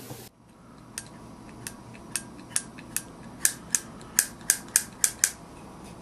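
Hand-forged iron spring latch being worked by hand: about a dozen short metallic clicks as the latch bar is moved and snaps back under its spring, coming closer together after about three seconds.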